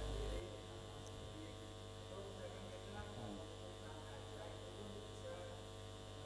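Steady electrical mains hum from the microphone and sound system, dropping a little in level about half a second in, with faint distant voices beneath it.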